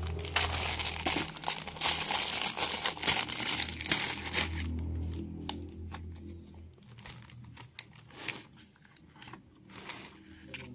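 Clear plastic wrapping on a screen-protector package crinkling as it is handled, dense and continuous for about the first four seconds. After that it turns quieter, with scattered light clicks and rustles.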